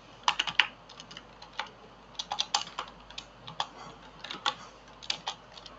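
Typing on a computer keyboard: irregular keystrokes in short clusters with brief pauses between them.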